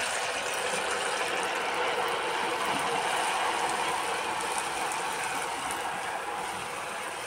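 Soaked sago pearls sizzling hard in hot oil in a metal wok, a dense crackling fizz that eases off slowly.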